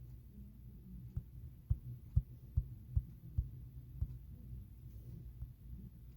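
A string of soft, low knocks, roughly two a second, over a steady low hum; the knocks fade out about four seconds in.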